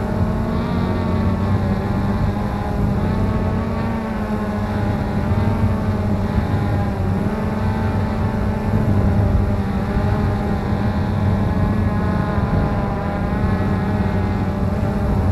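Cheerson CX-20 quadcopter's motors and propellers humming loudly, heard close up from the camera it carries, the pitch wavering slightly as the motors adjust speed.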